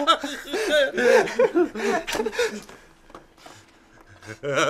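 A man laughing hard, a run of rhythmic ha-ha syllables for about two and a half seconds that then dies away; a short burst of voice comes near the end.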